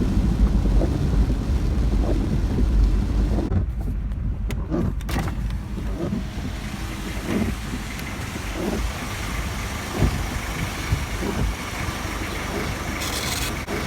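Car on the move: a steady low engine and road rumble with a few scattered knocks, easing off somewhat after about five seconds.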